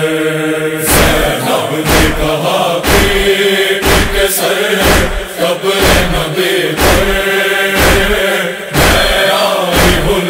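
Noha lament between verses: voices hold a sustained chant over rhythmic thumps about once a second, the beat of matam chest-beating.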